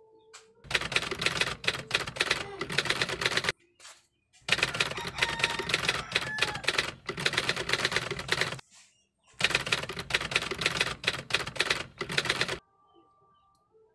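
Typewriter typing sound effect: three runs of rapid key clatter, each lasting three to four seconds, separated by short pauses.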